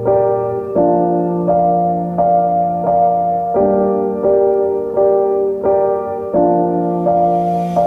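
Background music: a slow piano line of sustained notes, struck evenly about every 0.7 seconds, with a hiss rising near the end.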